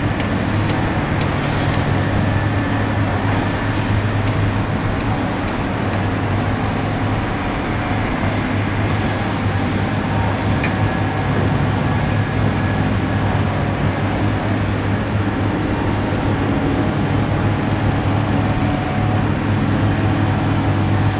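Diesel engine of a crawler-mounted hydraulic clamshell grab rig running steadily: an even, low drone.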